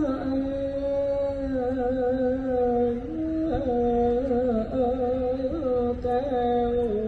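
A single voice chanting a Thai royal barge song (he ruea), holding long notes with wavering ornaments and stepping between a few pitches.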